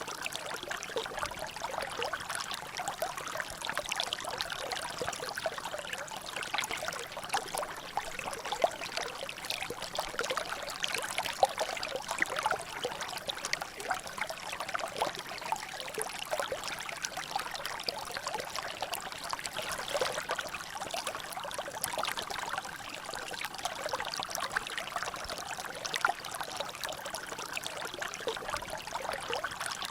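Water trickling steadily down a natural drainage, with a constant patter of many small drops and splashes.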